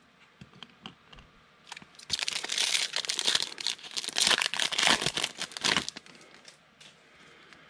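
Foil trading-card pack wrapper being torn open and crinkled by hand, a dense crackle lasting about four seconds. A few faint clicks come before it.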